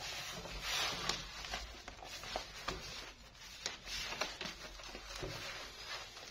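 Scattered light clicks and taps of a laptop being handled, over a faint low hum.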